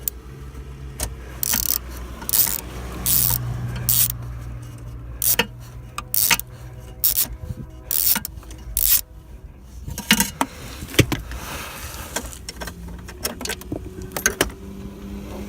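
Hand tools clicking and clinking against metal in irregular bursts as a small nut is worked loose under a car's dashboard, over a low steady hum.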